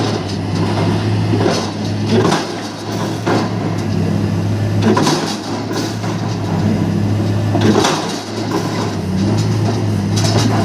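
MAIT HR180 hydraulic piling rig boring a pile: its diesel engine runs steadily with a low hum, broken four times by a sharp knock about every two and a half to three seconds.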